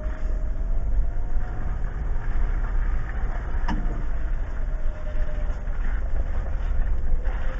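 A 2015 Jeep Wrangler Unlimited Rubicon's 3.6-litre V6 running at a slow crawl over a rough dirt trail, heard from inside the cab, with a heavy rumble and a faint whine that drifts slightly up and down in pitch. A single sharp knock comes about halfway through.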